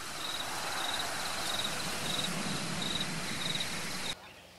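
Crickets chirping at an even pace, about two to three short trilled chirps a second, over a steady hiss of insect noise; it cuts off suddenly near the end.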